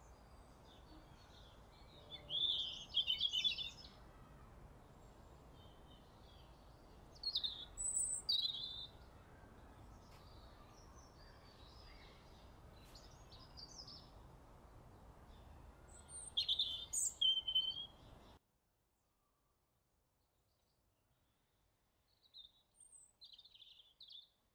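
Small songbird singing short bouts of high, quick chirps over a steady outdoor background hiss. The background cuts out about three-quarters of the way through, leaving a few faint chirps.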